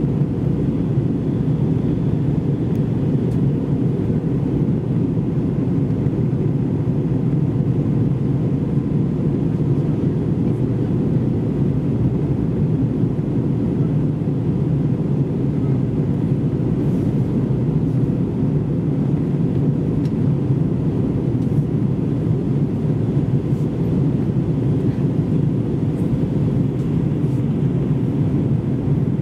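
Steady cabin noise inside an Airbus A321-200 descending on approach: a constant low rumble of the engines and airflow heard through the fuselage, with no change in level.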